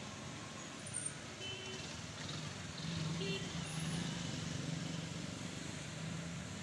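Low, steady hum of a motor vehicle engine that grows louder about three seconds in and then holds, with a few faint short high-pitched tones.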